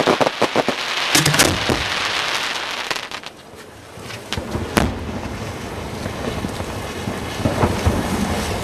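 Aerial fireworks from a barge display going off in quick succession, with bangs and crackling. There is a brief lull about three seconds in, then a sharp single bang, and the crackling bursts resume.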